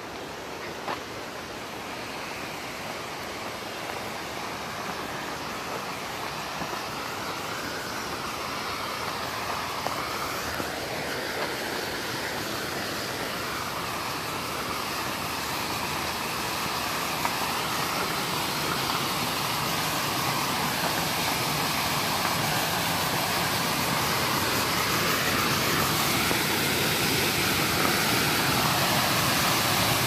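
Waterfall: water pouring over a small dam's spillway, a steady rushing that grows gradually louder throughout as it is approached.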